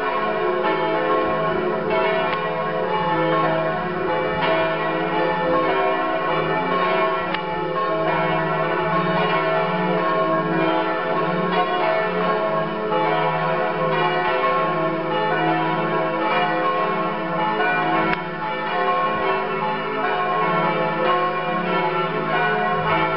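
The bells of St. Oswald's Church pealing, several bells ringing together so that their overlapping strokes form a continuous, dense ringing without a pause.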